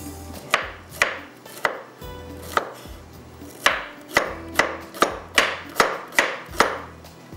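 Kitchen knife chopping cauliflower finely on a cutting board: a dozen or so sharp knocks, a few spaced strokes at first, then a steady run of about two and a half a second.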